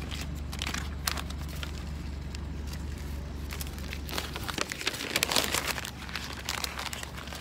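Paper and tape rustling, crinkling and scraping as a sign is peeled off a car, heaviest about two-thirds of the way in. Under it a steady low rumble of the car stops about four and a half seconds in.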